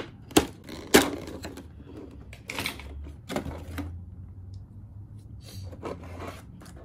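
Scissors snipping into a stiff clear plastic blister tray, with several sharp cracks in the first second, the loudest about a second in. Then crinkling and knocking of the plastic packaging as it is handled.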